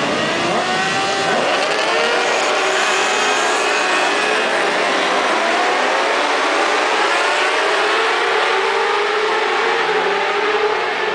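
A grid of racing motorcycles pulling away together and accelerating hard: many engines at high revs at once, their overlapping pitches rising again and again as they shift up through the gears.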